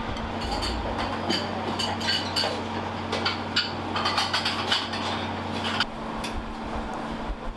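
Utensils and dishes clinking against each other in a commercial kitchen during tartar sauce preparation, many quick sharp clinks over a steady machine hum; a lower hum cuts off about six seconds in.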